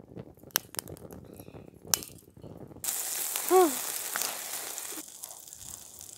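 Twigs crackling and popping as they burn in a Firebox folding wood stove, with sharp snaps; after about three seconds, hot dogs sizzle steadily on the stove's grill top. A short squeak about three and a half seconds in is the loudest sound.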